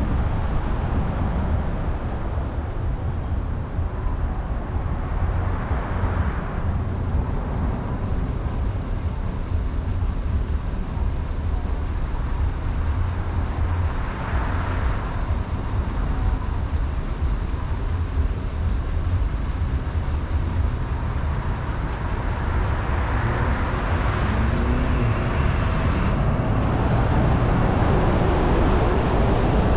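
Steady low rumble of road and engine noise from a car moving slowly in city traffic. Several swells of tyre hiss rise and fall as other vehicles pass, and there is a brief faint high whine about two-thirds of the way through.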